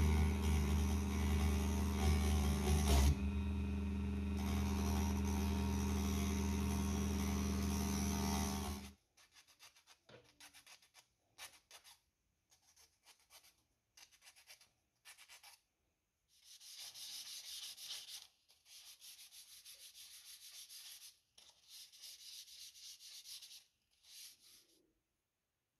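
A small hand-held rotary tool runs steadily against a wooden dowel for about nine seconds, then cuts off. After a few faint taps, sandpaper rubs along the thin wooden dowel in several bursts of quick back-and-forth strokes, shaping it into a model ship's yard.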